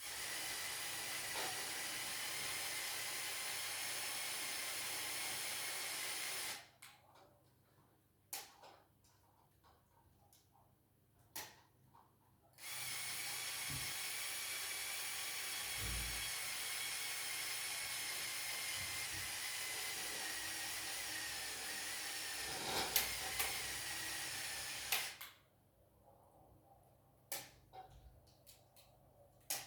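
Small electric motor whining steadily in two long runs, one of about six seconds and one of about twelve, with scattered clicks and knocks in the pauses between.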